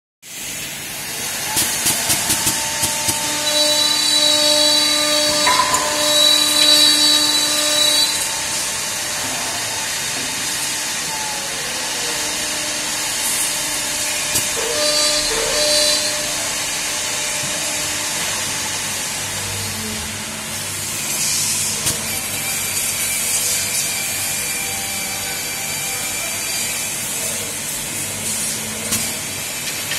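Multi-tool CNC mortising machine running and cutting mortises in wood: steady machine noise with whining tones that come and go, and a quick run of clicks about two seconds in.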